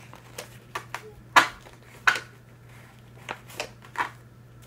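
Light, irregular plastic clicks and taps from craft supplies being handled on a table, among them a plastic watercolour paint case whose lid keeps popping open. About six clicks, the sharpest about a second and a half and two seconds in.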